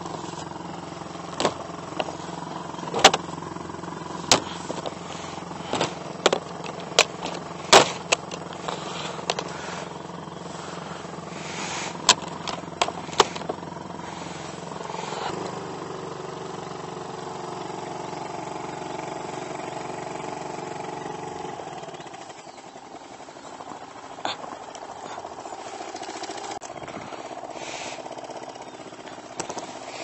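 A small boat motor running with a steady hum, with sharp clicks and knocks of gear being handled in the boat during the first half. The motor's note changes about halfway through and turns quieter after about twenty seconds.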